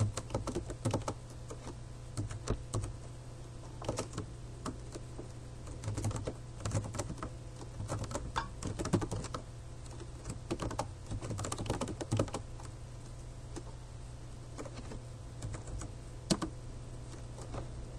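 Typing on a computer keyboard: irregular runs of keystroke clicks with short pauses, over a steady low hum.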